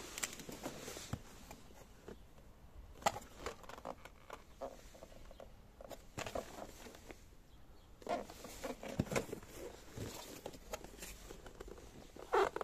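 Cardboard box being handled and turned over in the hands: irregular taps, scrapes and rustles of fingers on the cardboard, with a louder knock near the end.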